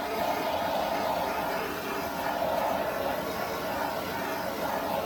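Handheld torch flame hissing steadily, run over freshly mixed acrylic paint to pop its air bubbles.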